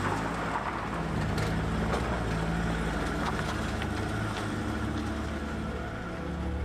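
A motor vehicle's engine running steadily, with a low, even hum.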